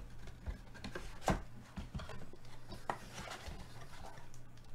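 Cardboard trading-card box being opened by gloved hands: scattered taps, clicks and rubbing as the flaps are folded back and the inner box is worked out.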